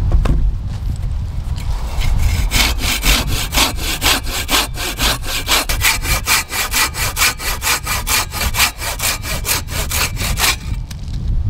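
Hand saw cutting through a small log: quick, even back-and-forth strokes that begin about two seconds in and stop about a second before the end. A single knock comes at the very start.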